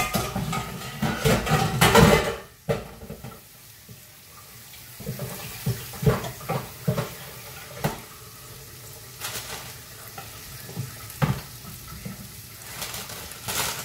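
Kitchen tap running into the sink for about two and a half seconds, then cutting off, followed by scattered clinks and knocks of dishes and a glass bowl being handled at the sink.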